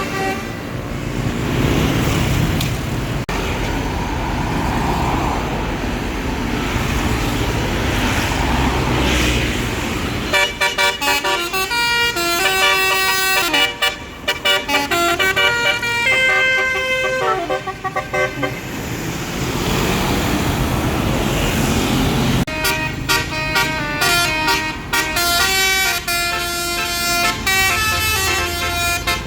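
Multi-tone Basuri 'telolet' bus horn playing a melody of stepped, held notes, starting about a third of the way in and again from about three quarters through. Before and between the melodies, vehicle engine and road noise from passing traffic.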